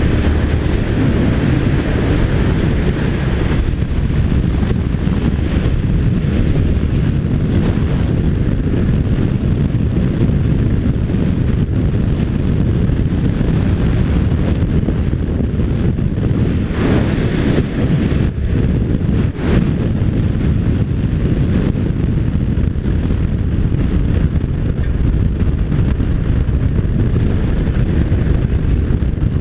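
Wind buffeting the microphone of a camera on a Honda NC750X motorcycle riding at speed, a steady low rumble with the bike's engine and tyre noise underneath. A couple of brief crackling bursts come about two-thirds of the way through.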